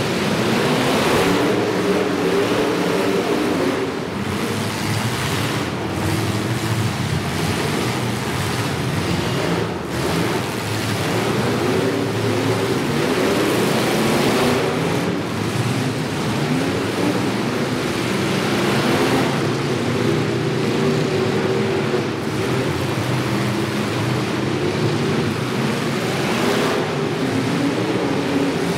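Several demolition derby cars' engines running and revving at once, their pitches rising and falling over a continuous din.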